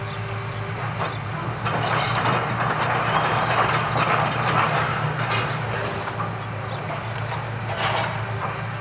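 Hitachi excavator with a demolition grab working rubble: its diesel engine runs steadily underneath. From about two seconds in to about five seconds comes a louder stretch of crunching, cracking debris with thin high squeaks, and another short crunch follows near the end.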